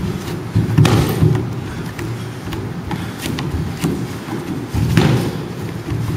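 Kickboxing sparring: dull thumps of gloved punches and kicks landing, with lighter taps and footfalls on the wooden floor between. The loudest thumps come about a second in and again about five seconds in.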